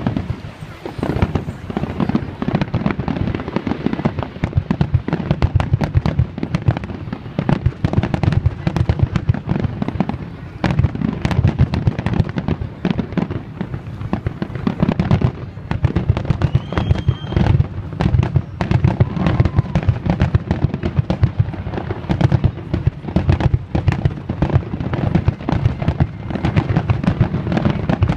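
Fireworks display: a dense, continuous barrage of shell bursts and crackling bangs, many a second, with no letup.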